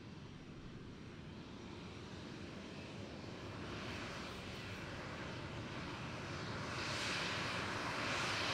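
Jet airliner's engines growing steadily louder as the plane approaches, a rushing hiss that builds over the whole stretch.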